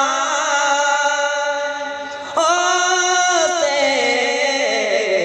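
A man singing a Bengali Islamic gojol into a microphone, holding long, wavering notes. A new phrase starts sharply about two and a half seconds in.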